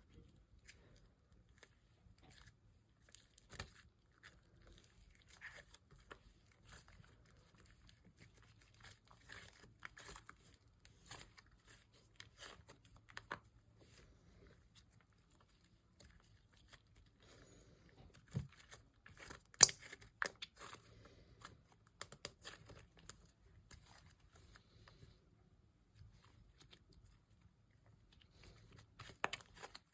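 Hands kneading and stretching butter slime, giving faint, scattered sticky clicks and pops, with a few louder snaps a little past the middle.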